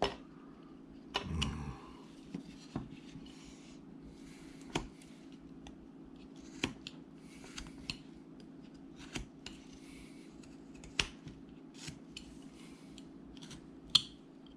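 Carving knife cutting into wood by hand: scattered sharp clicks as the blade bites and snaps through the grain, with soft scraping between them as the wood is shaved down. A steady low hum runs underneath, and one click near the end is louder.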